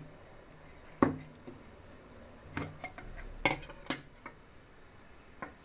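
Stainless steel lid of a tiffin container being prised open and lifted off: several short, light metallic clicks and clinks, the loudest about three and a half seconds in.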